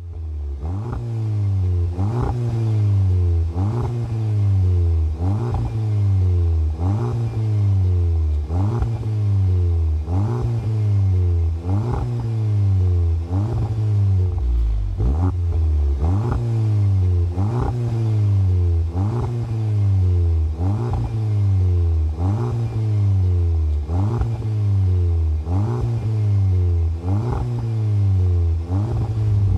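Audi S1's turbocharged 2.0-litre four-cylinder engine revving through a Cobra Sport resonated stainless steel cat-back exhaust: quick throttle blips about once a second, each one rising sharply and falling away.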